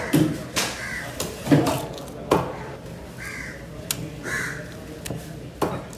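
A heavy fish knife chopping through skipjack tuna into the cutting block, about six sharp strikes, while crows caw several short times.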